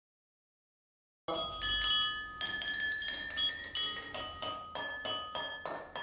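Drinking glasses holding different amounts of water, struck one after another with a metal spoon. They ring clear notes at several pitches in a quick, tune-like series that starts about a second and a quarter in.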